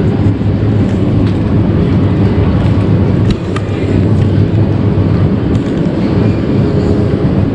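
Shopping cart rolling steadily over a smooth tiled supermarket floor, a continuous low rumble with a few light clicks and rattles from the cart and basket.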